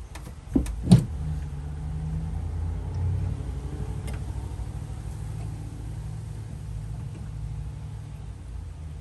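Two sharp knocks, then a steady low motor hum.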